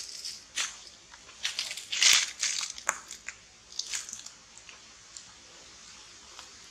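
A long-tailed macaque crunching and chewing food: a string of short, sharp, irregular crunches through the first four seconds or so, then only a faint hiss.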